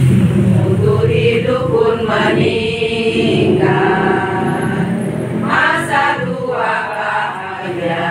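A group of women singing a march together, unaccompanied by speech, with long held notes.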